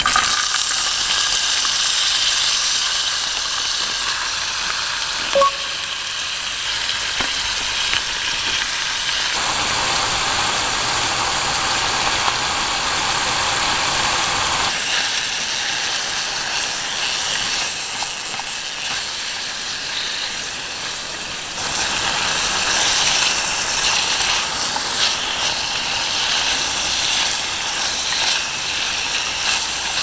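Potato pieces and broccoli frying in oil in a pan on a single-burner gas camp stove: a steady sizzle that is being stirred with chopsticks. Its level shifts abruptly a few times.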